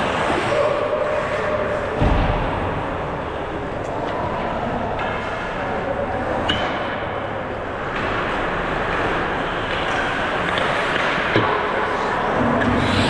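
Pickup ice hockey game on a rink: a steady wash of rink noise broken by a low thud about two seconds in and a couple of sharp stick-or-puck knocks later on.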